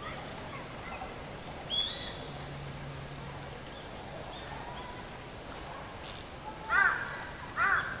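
A crow cawing twice near the end, about a second apart, over a quiet outdoor background. A single short, high bird call comes about two seconds in.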